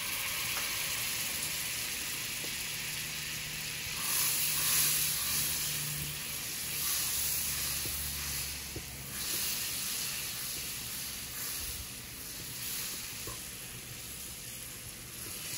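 A stick of butter melting and sizzling in a hot nonstick frying pan as it is pushed around with a wooden spatula. The sizzle runs steadily and swells louder about four seconds in and a few times after.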